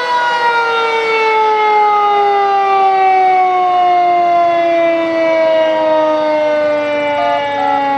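Federal Signal 2001-DC electromechanical outdoor warning siren winding down: its single loud tone falls slowly and steadily in pitch as the rotor slows. Short stepped tones come in faintly near the end.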